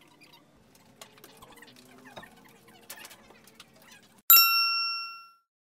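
Faint murmur and small clicks of a post office lobby, then about four seconds in a single loud, bright ding that rings for about a second before cutting off into silence.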